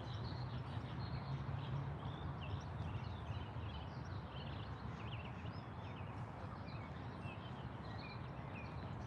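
Outdoor ambience: many small birds chirping over a steady low hum.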